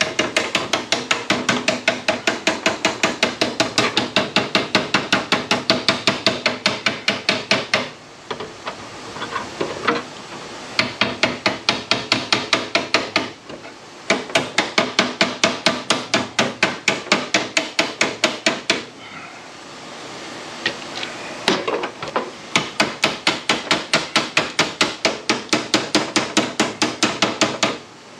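Hand hammer beating rusty sheet steel of a Range Rover Classic fender to flatten it, in rapid runs of about five blows a second with a metallic ring on each. There are brief pauses about eight, thirteen and nineteen seconds in.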